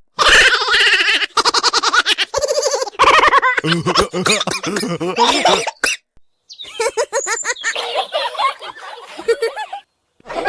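Voices laughing and giggling in quick pulses, with a brief silence about six seconds in and another near the end.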